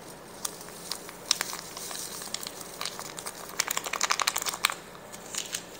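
A small packet of sazón seasoning being torn open and crinkled by hand: a run of small crackles and ticks, busiest about four seconds in.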